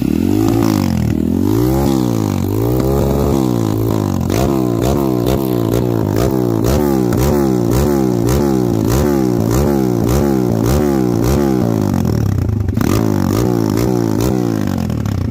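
Dirt bike engine revved again and again. It starts with a few slow revs, then goes into quick regular throttle blips, nearly two a second, eases to a steadier run for a moment near the end, and then blips again.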